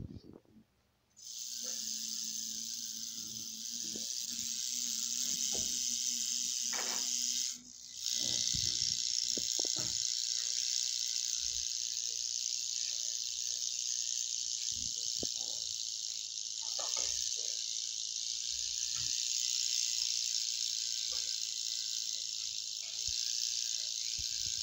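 Rattlesnake rattling its tail in a continuous high dry buzz, the defensive rattle of a snake that feels threatened. It breaks off briefly twice, with a few faint knocks over it.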